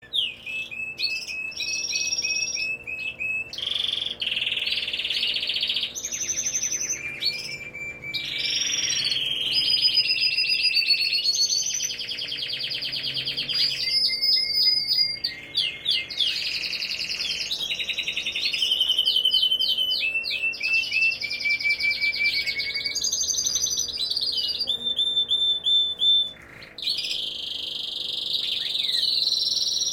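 European goldfinches singing and twittering almost without a break: rapid trills, strings of quick repeated notes and sliding chirps.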